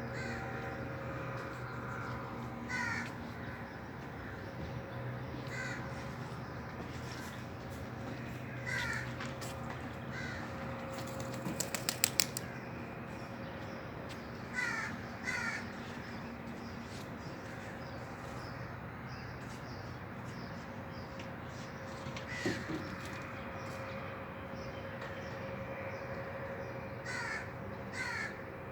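A bird calling in short notes, mostly in groups of two or three, every few seconds, over a steady low hum. About eleven seconds in comes a rapid run of sharp clicks, the loudest sound here.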